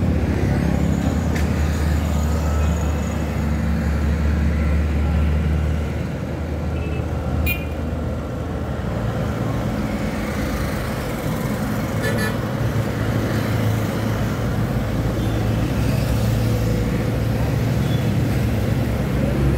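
Road traffic: motorcycles, a bus and trucks running past with a steady engine drone. Two brief sharp sounds cut through, one about seven seconds in and one about twelve seconds in.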